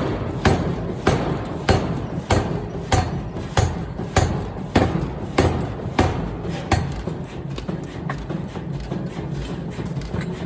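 Forging power hammer striking hot metal in a steady rhythm, about one and a half blows a second. The blows stop about two-thirds of the way in, leaving a steady machine rumble.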